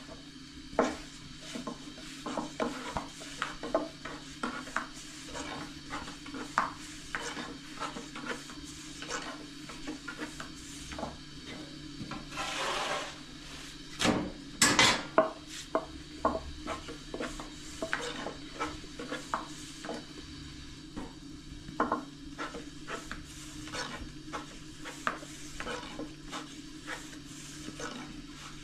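Thin wooden rolling pin rolling and tapping on a wooden board as flatbread dough is rolled out, a steady run of light clacks. About halfway through, a brief scrape and then a louder clatter as a wooden stick turns the bread on the metal griddle. A steady low hum runs underneath.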